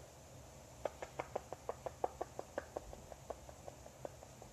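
Quick, light clicking taps, about six a second and a little uneven, starting about a second in: fingernails tapping on a plastic eyeshadow palette case as it is handled.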